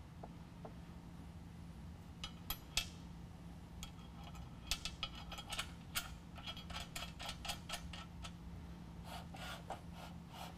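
Steel handle bracket on a Bizon snow plow blade being slid and shifted along the blade's aluminum top track, loosely bolted in place: scattered metal clicks and short scrapes, over a low steady hum.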